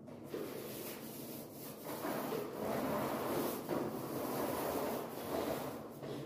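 Small cutting-edge paint roller rolled along the top of a wall to cut in against the ceiling: a wet, rubbing roll of the roller over the wall in strokes, louder from about two seconds in.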